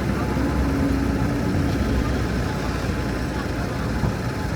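City road traffic with an engine running close by: a steady low rumble.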